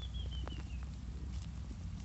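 A horse's stomach growling: a low, steady rumble. A bird's quick run of short chirps, stepping down in pitch, sounds in the first second, with a few light clicks.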